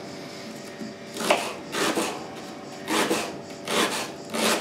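Kitchen knife chopping an onion on a cutting board: about five separate cuts, each a sharp knock with a short scrape as the blade goes through and meets the board.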